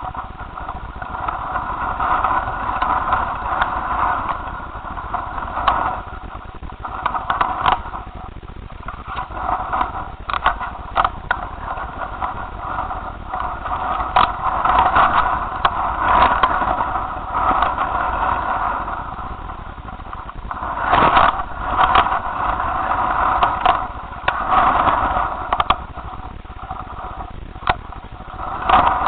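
Strong wind buffeting the microphone, with a hum of several steady tones that swells and fades every few seconds. Frequent short knocks and rattles run through it, loudest a little past two-thirds of the way through.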